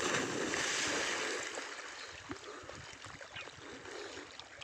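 Water splashing and rushing. It starts loud and suddenly, fades over about two seconds, and then goes on as a faint steady trickle.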